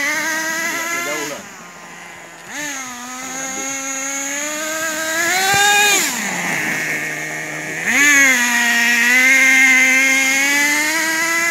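Traxxas radio-controlled monster truck's motor running under changing throttle, its buzzing pitch rising and falling: it drops low twice, about a second in and around the middle, and revs back up each time.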